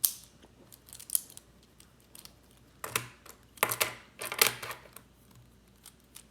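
Plastic infinity cube being folded over and over, its hinged blocks clicking and snapping together. Scattered single clicks, with quick runs of clicks around the middle.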